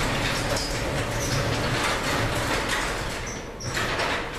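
Chamberlain PD222 half-horsepower garage door opener running the door down, with the door rattling, popping and jerking along its track; the level drops near the end as the travel stops. The owner puts the popping and jerking down to a door that needs lubrication and fine tuning.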